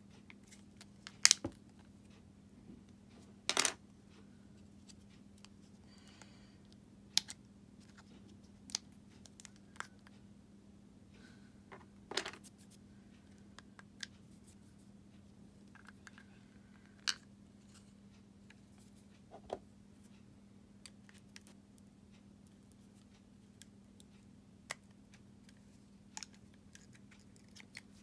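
Sharp plastic clicks and snaps, irregular and a few seconds apart, as a Fiat 500 flip-key fob shell is handled and pried open with a flathead screwdriver. A faint steady hum runs underneath.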